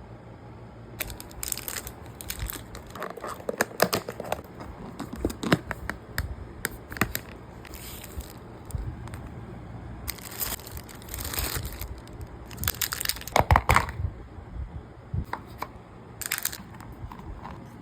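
Irregular crinkling and rustling with scattered sharp clicks, the densest burst about thirteen seconds in.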